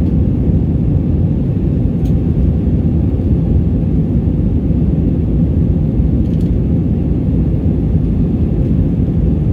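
Airliner cabin noise during the climb after takeoff: a steady, loud low rumble of engines and airflow heard inside the cabin, with a faint steady hum above it.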